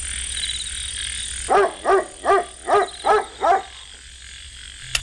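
An animal call repeated six times in quick succession, each one rising and falling in pitch, over a steady background hiss.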